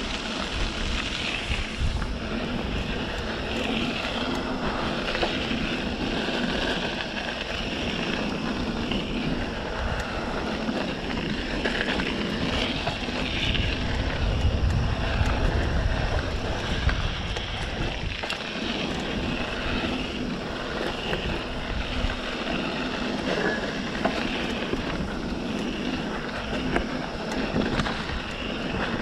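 Wind buffeting the microphone of a mountain bike rider going down a dirt trail, over a rumble of tyres and small rattles and clicks from the bike. The rumble swells for a few seconds around the middle.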